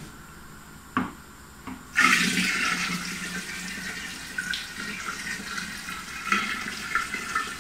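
Hot sugar water poured from a pot into a winemaking primary fermenter: a steady splashing pour that starts suddenly about two seconds in, after a single knock about a second in.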